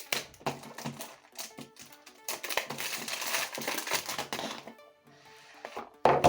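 A cube's retail box being opened by hand: cardboard and plastic packaging rustling and crinkling with irregular clicks and knocks, loudest with a couple of sharp knocks about six seconds in, over background music.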